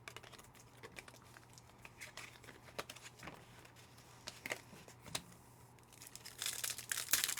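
Trading-card pack wrapper crinkling and tearing as a pack is ripped open near the end, after a few seconds of faint scattered taps and clicks of cards being handled.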